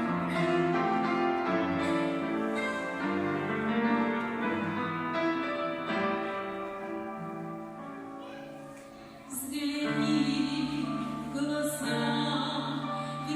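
Singing with piano accompaniment. The music thins and grows quieter, then comes back fuller and louder about nine seconds in.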